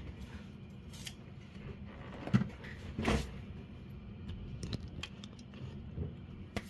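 Scattered light clicks and a couple of knocks of small objects handled on a workbench, over a low steady hum.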